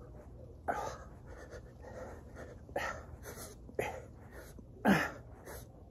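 A man breathing out hard, one short sharp exhale about once a second, in time with his push-ups. The last, near the end, is the loudest and voiced, like a grunt of strain.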